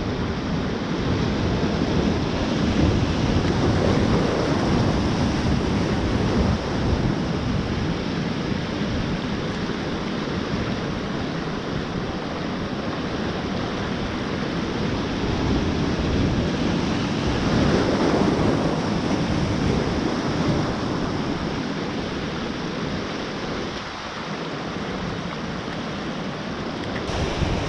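Surf breaking and washing over a kelp-covered rocky reef, a steady rushing that swells louder twice, with wind rumbling on the microphone.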